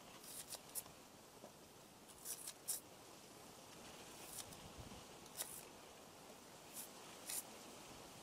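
Short, faint cutting and scraping strokes of a blade as the green skin is pared off green bananas: about ten sharp strokes, the first ones in quick runs of three.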